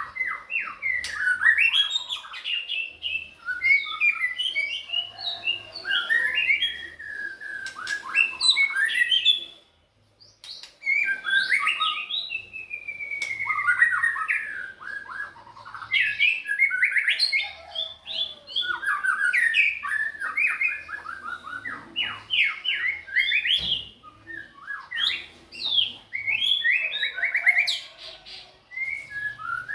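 Songbird singing a fast, varied song of chirps, trills and short whistled slides, nearly without pause, with one brief break about ten seconds in.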